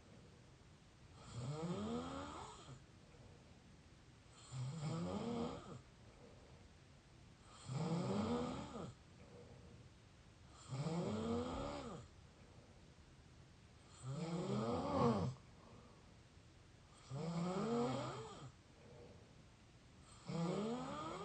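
Mouth snoring: a slow, regular run of seven snores, about one every three seconds, each lasting about a second with a pitch that bends up and down.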